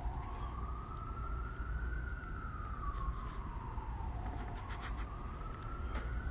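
Emergency vehicle siren in wail mode: one tone rising slowly for about two seconds, falling for about two, then rising again. A few light clicks come in the middle, over a low steady rumble.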